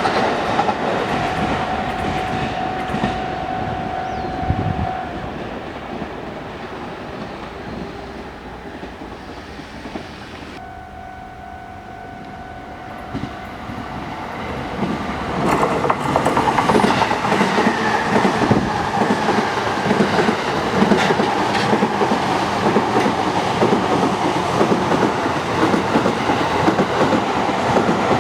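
JR East commuter electric trains passing on the line: the rumble and wheel clatter of one train fades away, is quietest about a third of the way in, then another train comes up from about halfway and passes close with a steady clickety-clack of wheels over the rails to the end.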